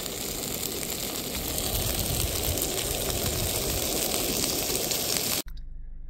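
Steak and beans sizzling in a frying pan over a camp stove: a steady hiss that cuts off abruptly about five and a half seconds in.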